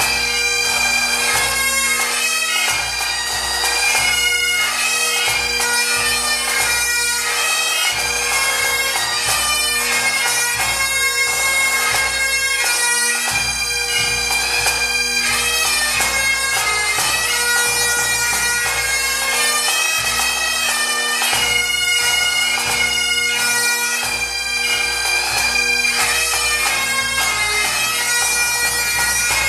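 Pipe band playing a medley: Great Highland bagpipes sounding a melody over their steady drone, with drums beneath.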